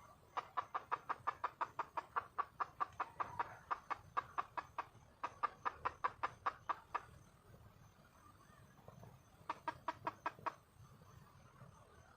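Junglefowl hen calling for a mate with rapid runs of short clucks, about five a second: a long run, a shorter one, then a brief burst near the end.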